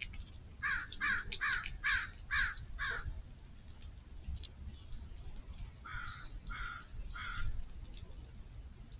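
A bird calling outdoors with harsh calls: a quick run of six about a second in, then three more, slower, about six seconds in.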